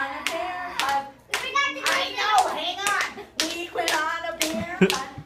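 Hands clapping and slapping in an uneven rhythm, two or three strokes a second, mixed with voices calling out.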